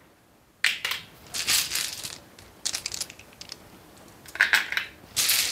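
Small plastic Azul tiles clicking and clattering together in about five short bursts as handfuls of four are set down on the cardboard factory discs.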